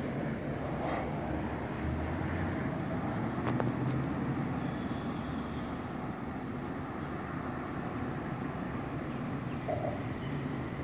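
Steady airport background rumble of distant engines and traffic, with a single sharp click about three and a half seconds in.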